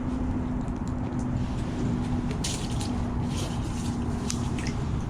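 Strong wind rushing steadily across the microphone, with a few short crackling sounds about halfway through.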